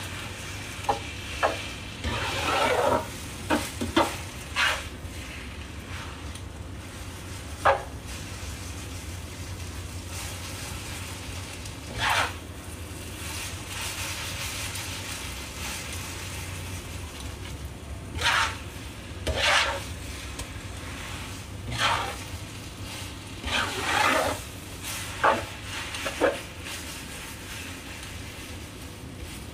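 Rice vermicelli stir-frying in a wok, sizzling, while a spatula scrapes and knocks against the pan in a dozen or so irregular strokes. A steady low hum runs underneath.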